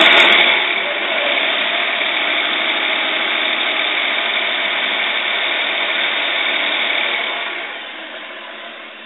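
Toyota 2JZ-GTE twin-turbo straight-six idling roughly while overfueling, a fault the owner traced to injectors needing service, a bad O2 sensor and bad spark plugs. The sound fades out over the last second or two.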